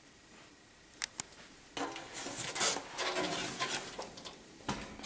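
Handling noise from the metal box fan being moved and turned around: two light clicks, then a few seconds of rubbing and scraping, and a thump near the end.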